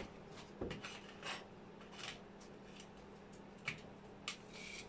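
Small parts of a PCP air rifle being handled by hand during disassembly: a few scattered light clicks and clinks.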